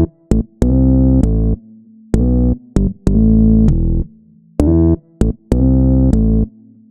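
Background music: synthesizer keyboard chords played as short stabs and longer held chords of about a second, with brief silences between them.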